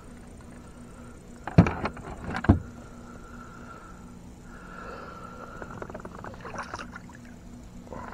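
Two sharp knocks about a second apart on a small fishing boat, then lighter clicks and rattles of handling, over a faint steady hum.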